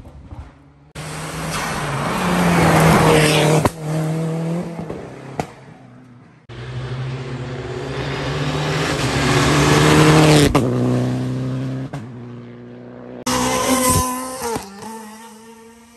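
Rally cars at full throttle passing close by, one after another in three abruptly cut passes. Each engine note climbs through the revs and then drops sharply at a gear change or lift-off as the car goes past.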